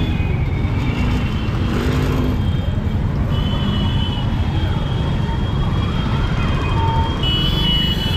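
Busy road traffic: motorcycles, scooters, cars and an auto-rickshaw passing close by, with a steady engine rumble. A steady high-pitched tone joins about three seconds in and holds to the end.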